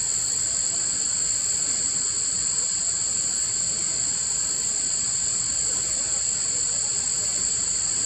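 Steady high-pitched insect chorus: a continuous buzz in two pitches, unbroken and even.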